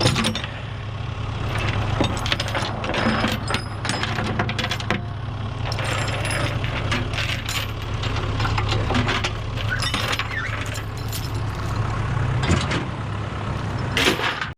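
A vehicle engine idles steadily while repeated sharp metallic clinks and clanks sound over it throughout, as of metal parts or hardware being handled.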